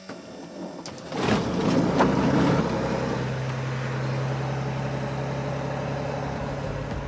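Light aircraft's piston engine starting about a second in, then settling into a steady idle hum.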